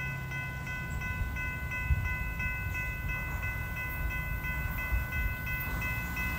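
Railroad grade crossing bell ringing at about three strikes a second, with wind rumble on the microphone; the bell stops just at the end as a train approaches.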